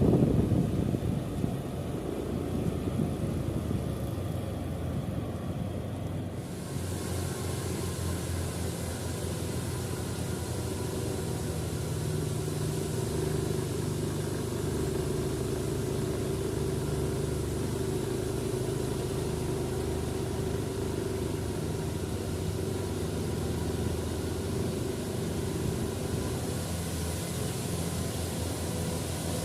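Heavy diesel engine running steadily at a low, even speed, with a louder burst right at the start and a hiss that comes in about six seconds in.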